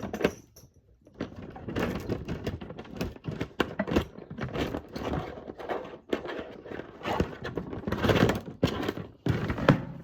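Small fidget toys knocking and clattering together as they are rummaged through by hand: a dense, irregular run of clicks and knocks.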